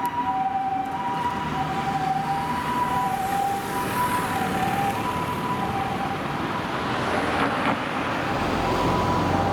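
Japanese ambulance's two-tone 'pii-poo' siren, alternating steadily between a high and a low note over road traffic noise. The siren fades about two-thirds of the way in and returns near the end.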